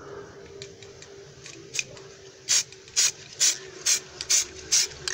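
Aerosol can of peelable rubber-coating spray paint sprayed onto a car wheel rim in short, quick bursts, about two a second, starting about two seconds in: the first coat being laid on little by little.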